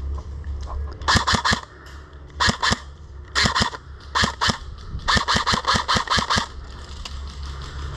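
Airsoft M4 rifle firing in five short bursts of rapid shots, about ten a second, the last burst the longest.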